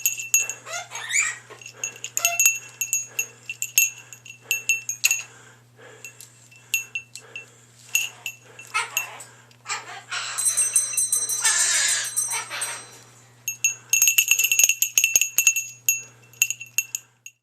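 A pet bird playing with a small bell, setting it ringing in repeated jingling clusters, with pauses between them.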